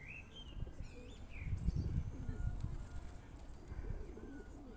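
Feral pigeons cooing, with short high chirps from small birds in the first second and a half. A low rumble about two seconds in is the loudest part.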